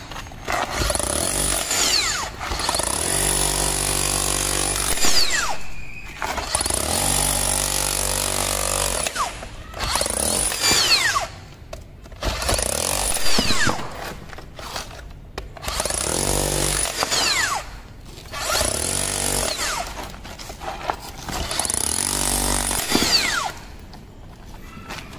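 Makita HR005G 40V cordless SDS-Max rotary hammer chiselling a concrete block. It runs in about eight bursts of two to three seconds with short pauses between them, the hammer mechanism pounding rapidly at the bit.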